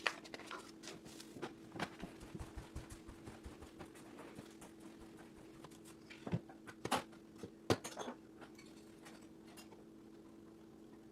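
Plastic Lego Technic pieces clicking and rattling as they are handled and pressed together: a scatter of light irregular taps, a few sharper clicks past the middle, over a steady low hum.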